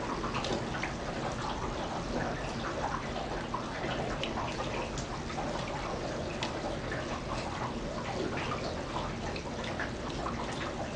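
Rain falling steadily into a shallow layer of standing water, with many separate drops splashing.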